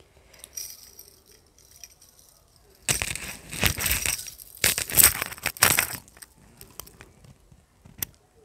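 Metal chain necklace clinking and jingling as it is lifted over the head and put on, loud and dense for about three seconds in the middle, where it rubs close against the clip-on microphone. A single sharp click near the end as the clasp is fastened at the back of the neck.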